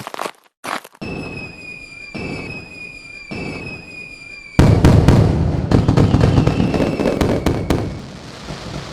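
Fireworks: a couple of sharp pops, then three whistles, each dropping slightly in pitch. About four and a half seconds in comes a loud burst of bangs and crackling that slowly dies away.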